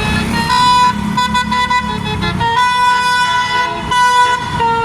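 Bus telolet horn, a multi-tone musical air horn of the Basuri type, playing a tune of held notes that change pitch every second or two, over a low rumble of engines.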